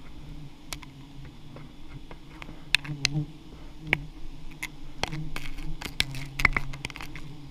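A swarm of giant honey bees buzzing close by, a steady low hum, with many sharp clicks and taps over it, most frequent from about five seconds in.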